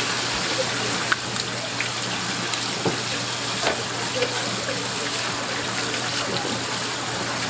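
Spray faucet running steadily, its stream splashing onto a plastic cutting board and over squid being rinsed by hand, with a few small knocks and splashes from the handling.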